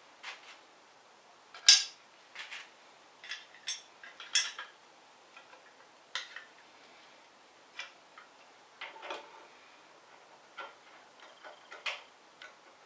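Irregular metallic clicks and clinks of hand tools and metal parts as brackets are fitted to the motorcycle frame, with a sharper clank about two seconds in.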